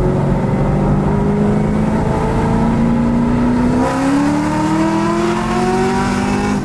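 Supercharged V8 of a sixth-generation Camaro ZL1 heard from inside the cabin, pulling in gear, its pitch rising steadily under acceleration, with a brief hitch about four seconds in before it keeps climbing.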